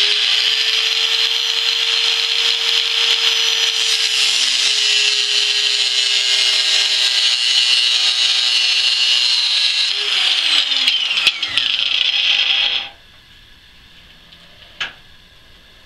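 A 4.5-inch angle grinder with a cutoff disc runs at full speed, grinding into 304 stainless steel with a steady high grinding noise over the motor's whine. It barely bites, cutting only about a millimetre. About ten seconds in the motor is switched off and winds down, and the grinding stops a couple of seconds later.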